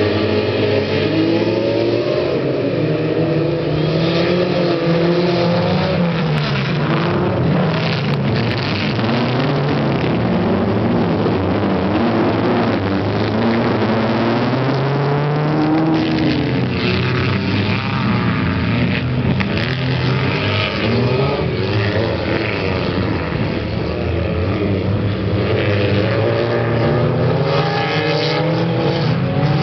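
Autocross saloon cars racing on a dirt track: several engines at full throttle, revving and changing gear, their notes rising and falling over one another as the field launches from the start. Around the middle, cars pass close, and engine and tyre noise swell.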